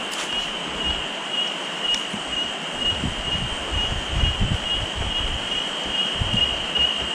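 Steady rushing of river water, with a high, gently pulsing whine over it throughout. Low rumbling gusts, like wind buffeting the microphone, come and go from about three to six and a half seconds in.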